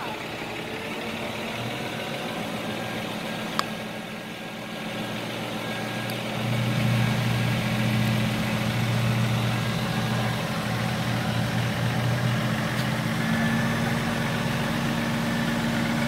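The Altec crane truck's diesel engine runs steadily under load while the boom holds and swings a cut section of oak, getting louder about six seconds in. A single sharp click sounds about three and a half seconds in.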